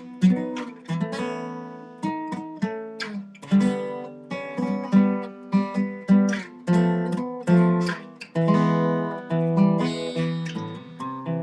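Acoustic guitar playing: chords strummed and picked one after another, each with a sharp attack that rings out and fades.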